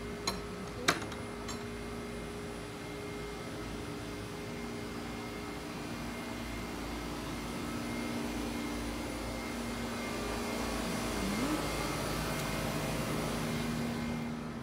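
Steady mechanical drone with a low hum, growing louder through the second half and falling away near the end, with two sharp clicks about a second in.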